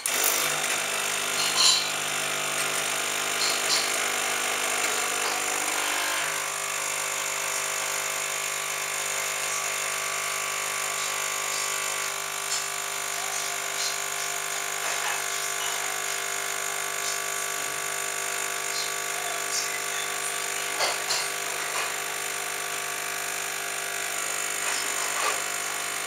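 Carraro Don Cortez II espresso machine's pump running steadily through a shot, a continuous hum whose lower note shifts about six seconds in, with a few faint clicks.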